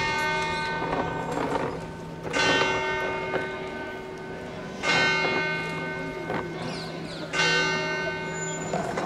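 A single church bell tolling slowly: four strikes about two and a half seconds apart, each one ringing on and fading before the next.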